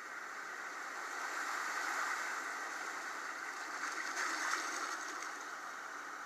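Sea water rushing and splashing around a whale in a film soundtrack, heard off a TV speaker: a rushing hiss that swells about two seconds in and again around four seconds in.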